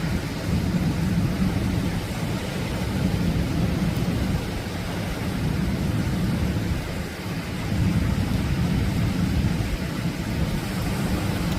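Atlantic surf breaking and washing on the shore: a continuous deep rumble of waves that swells and eases slightly.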